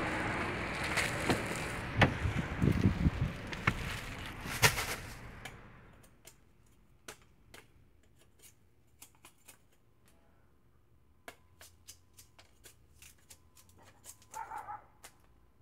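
Wind rushing on the microphone with a few scuffs and taps while walking, fading out after about five seconds. Then faint, sharp clicks at irregular intervals as a machete blade works on a stalk of sugar cane.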